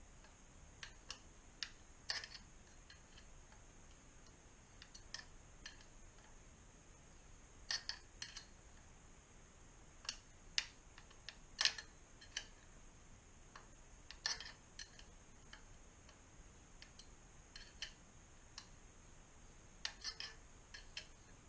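Scattered light clicks and taps of a T-handle Allen key working the retaining bolt of a slip-on exhaust's removable silencer insert, at an uneven pace, over a faint steady hiss.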